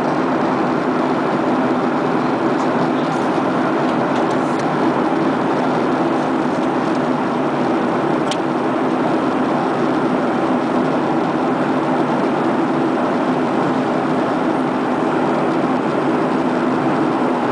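Steady cabin noise of an airliner in flight: jet engine and airflow noise with a constant low hum, unchanging throughout. A single faint click about halfway through.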